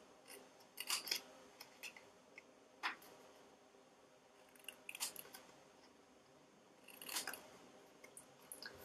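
Small scissors snipping slits into the edge of a strip of cardstock: about four faint, crisp snips a couple of seconds apart.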